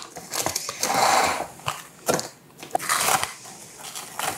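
Crinkling and rustling of a wrap being pulled over a bowl to cover it, in several short bursts, the loudest about a second in and another about three seconds in, with a few small clicks.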